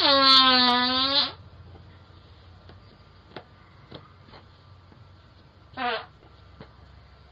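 Two farts close to a doorbell camera's microphone: a long, loud buzzing one lasting about a second and a half, then a short one falling in pitch about four seconds later, with a few faint clicks in between.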